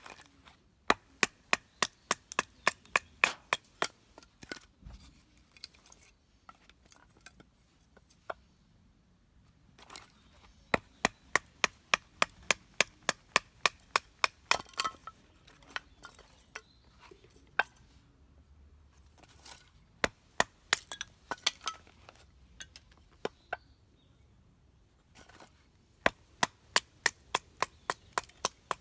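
Batoning firewood: a wooden baton knocking on the spine of a Mora knife to drive the blade through a split of wood. The sharp knocks come about three a second in four runs of several seconds, with pauses between.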